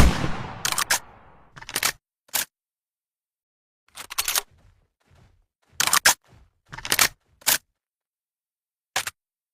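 A makeshift shotgun sound effect: one sharp blast with a tail that fades over about a second. It is followed by a series of short, sharp clicks and clacks in small clusters, with a pause of over a second in the middle.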